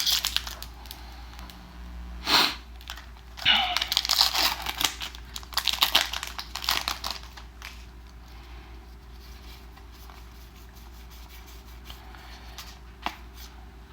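Foil wrapper of a Magic: The Gathering booster pack being torn open and crinkled, in bursts of crackling with a sharp snap in the first seven seconds, then quieter handling with a single click near the end.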